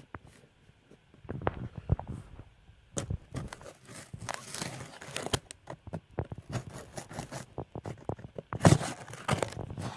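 Packaging being opened and handled by hand: irregular crinkling, tearing and rustling with scattered clicks and knocks, starting about a second in, with a louder knock near the end.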